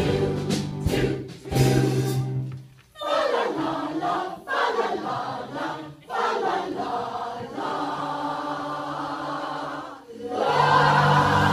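Choir of mostly women's voices singing together in phrases with short breaks between them; a louder full held chord starts near the end.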